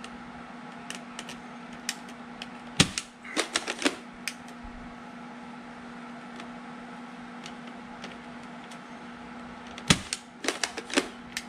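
A spring-loaded salt-shooting bug gun firing twice, about seven seconds apart, each sharp shot followed by a quick run of clicks from the gun. A steady low hum runs underneath.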